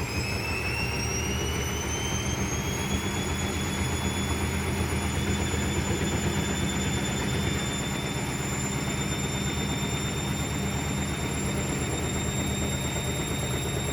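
Hotpoint WMA46 washing machine's drum spinning up in an interim spin: the motor's whine rises over the first few seconds, then holds steady over a low rumble. An odd rapid knocking comes from the machine as it spins.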